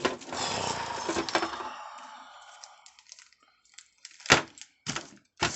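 Rustling and clattering of tools and small metal parts being handled, fading out after a couple of seconds, then a few separate sharp clicks.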